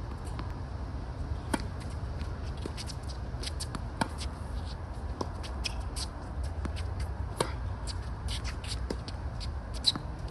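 Tennis rally on a hard court: four sharp racket-on-ball hits, about two and a half to three and a half seconds apart, over a low steady rumble, with faint scuffs and ticks between the hits.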